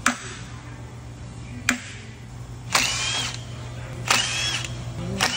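Handheld cordless power driver run in three short bursts, each with a whine, while unfastening the end bell of a 200 HP electric motor. Two sharp knocks come before the bursts in the first two seconds.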